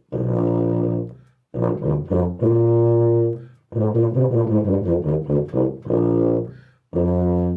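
Červený tuba played through a Kelly Lexan plastic mouthpiece: a few short phrases of low held notes, with a quicker run of changing notes in the middle, each phrase broken by a short breath.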